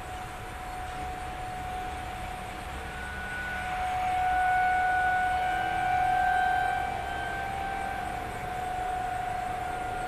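Outdoor tornado siren sounding a steady tone in a test, swelling louder and fading again twice as it carries across the area.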